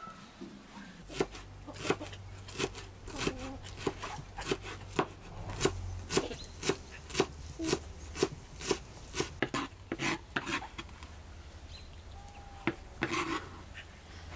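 Kitchen knife chopping fresh dill on a wooden cutting board, a steady run of about two chops a second that stops after about ten seconds. Near the end come a couple more knocks and a short scrape of the knife.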